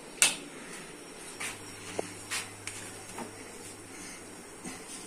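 Kitchen handling noises while food is being put together: a sharp knock about a quarter second in, then several lighter clicks and taps, over a faint low steady hum that starts about a second and a half in.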